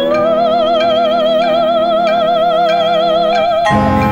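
A soprano slides up into one long high note with a wide, even vibrato, held over sustained instrumental chords. Near the end the voice stops and a deeper chord from the ensemble takes over.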